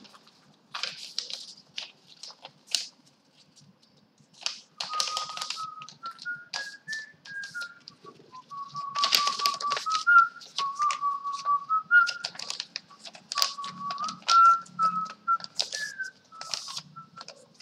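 A person whistling a tune in held notes that step up and down, starting about four and a half seconds in, over a steady clatter of computer keyboard and mouse clicks.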